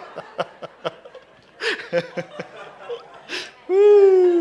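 A man's laughter dying away in short breathy pulses after a joke. Near the end comes a loud drawn-out tone lasting under a second, one held note sliding slightly down in pitch.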